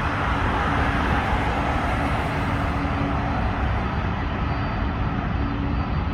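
Jet engines of a cargo airliner running during takeoff: a steady, loud rumble with a hiss on top that thins out a little about halfway through.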